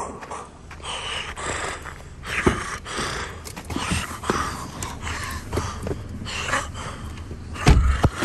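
Handling and rustling noise as a person climbs into the rear seat of an SUV: irregular rustles with a few sharp clicks, and a heavy thump near the end.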